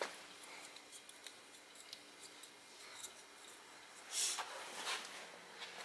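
A hand handling the chrome lug nut covers of a truck's front wheel: faint small clicks and rubbing, with two brief louder scrapes near the end.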